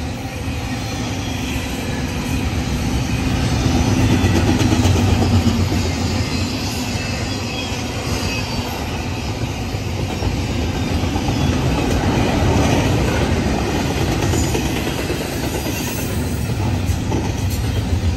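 Double-stack intermodal freight train's container well cars rolling past close by: a steady rumble of steel wheels on rail, swelling louder about four seconds in and again about twelve seconds in.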